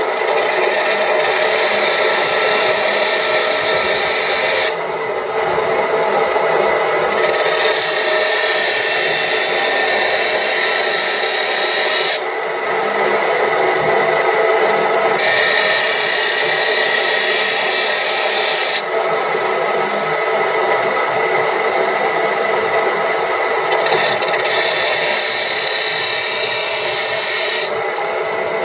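Metal lathe running with a steady motor hum, while a tool works the turning metal in four spells of harsh, high-pitched scraping, each a few seconds long with short pauses between.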